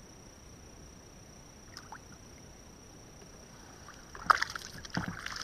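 Water splashing by hand at the side of a fishing kayak: a short run of splashes and knocks against the hull about four seconds in, the first the sharpest, over a faint steady high whine.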